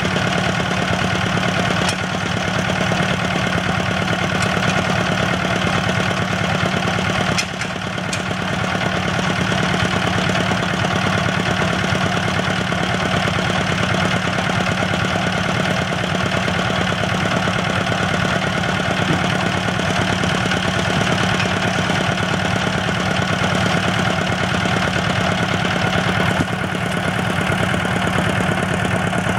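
A well-drilling rig's engine running steadily with a low, even hum, dipping briefly about seven seconds in.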